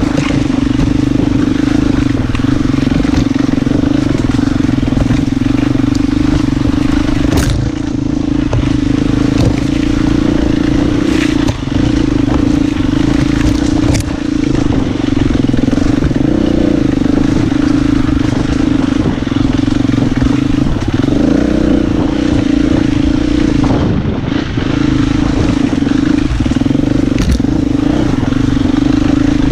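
Husqvarna FE 250 four-stroke single-cylinder enduro motorcycle engine running under load at a fairly steady pitch, the revs wavering briefly a couple of times. A few sharp knocks stand out over it.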